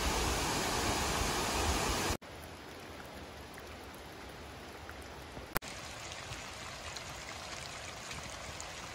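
Waterfall cascade rushing loudly, cut off abruptly about two seconds in by a much quieter, steady sound of water trickling and dripping down a mossy rock face. A single sharp click about halfway through.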